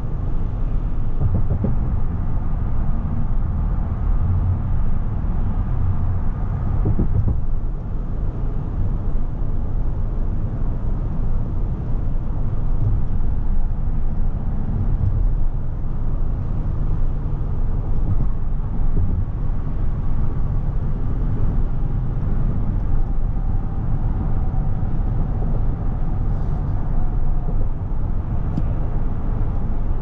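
Steady low rumble of road and tyre noise inside the cabin of a 2021 Cadillac Escalade ESV cruising at freeway speed.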